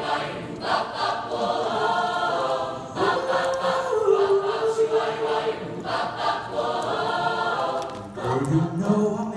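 Mixed high school choir of boys and girls singing, holding long chords that move in steps; a lower line comes in near the end.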